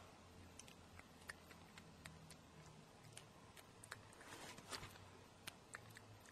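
A cat chewing and nibbling a dried crab-stick treat: faint, irregular little clicks and crunches, with a slightly louder crunchy patch a little past halfway.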